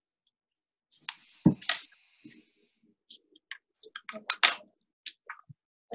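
Scattered light clicks and taps of small glass pieces and items being handled on a work table, with one louder thump about a second and a half in and a brief rustle around it.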